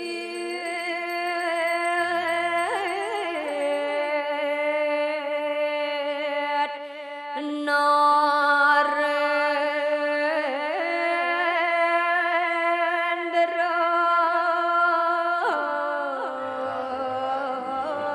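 A single voice singing a slow chant in long held notes, each moving with a short ornamented slide to a new pitch every few seconds.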